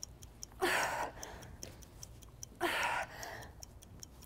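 A woman breathing out hard from exertion, twice, about two seconds apart, one breath per sit-up repetition. A faint, fast, even ticking runs underneath.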